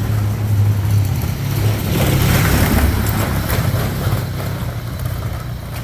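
A motor vehicle engine running with a steady low hum, and a louder swell of noise about two to three seconds in, as of a vehicle going by.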